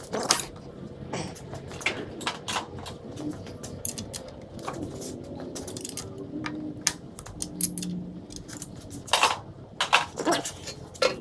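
Irregular clicks, clatters and knocks of objects being handled, spaced unevenly throughout.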